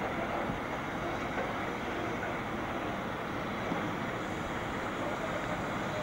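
Diesel shunting locomotive running and moving off at a distance, heard as a steady rumble under wind on the microphone.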